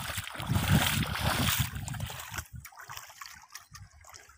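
A large catfish hooked on a spoon lure thrashing and splashing at the water's surface. The splashing is loudest in the first couple of seconds, then dies down.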